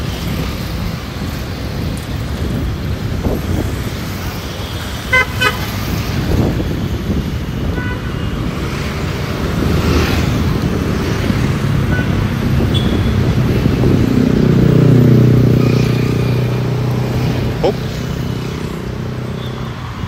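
City road traffic: engines running and vehicles passing, with a brief horn toot about five seconds in. A vehicle engine passes close, loudest around fifteen seconds in.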